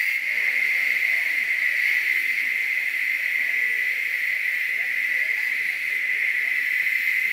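Cicadas droning in tropical forest: one unbroken, steady, shrill buzz.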